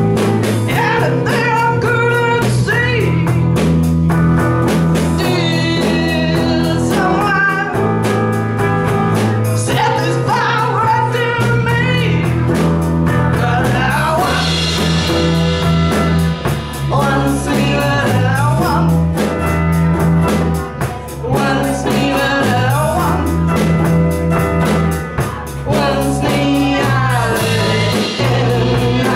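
A live psychedelic rock band playing: female voices singing over electric guitar and drums.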